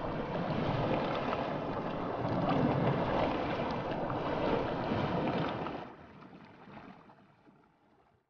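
Rushing, churning water of a river in spate, a dense steady noise that drops away sharply about six seconds in and then fades out.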